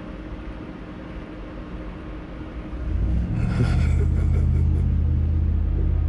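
Pet fox giving a low, steady rumbling growl while play-attacking and mouthing a hand, starting about three seconds in after faint room noise.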